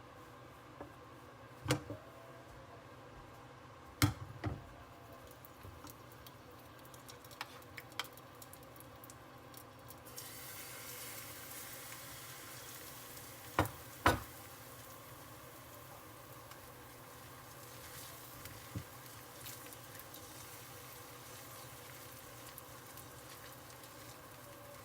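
A few sharp knocks and clanks, likely cookware or utensils. From about ten seconds in comes a steady sizzling hiss of food frying in a pan, with two louder clanks partway through.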